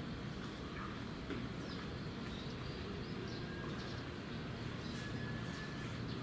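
Steady outdoor background rumble with a few faint, thin bird chirps and whistles over it.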